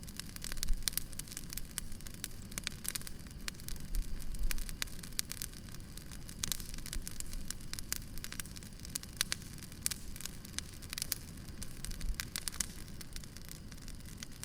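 Wood fire crackling steadily, with many irregular sharp pops and snaps over a low rumble, and a couple of heavier thumps from the burning logs.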